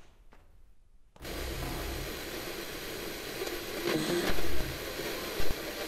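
A faint footstep, then about a second in a television suddenly bursts into loud, steady static hiss, with two short louder bursts near the end. It is a Foley recreation of TV static.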